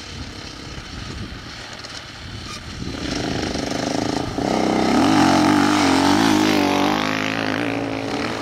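Off-road rally motorcycle engine approaching: a low rumble at first, then the engine comes in about three seconds in and grows louder, its pitch rising and falling with the throttle.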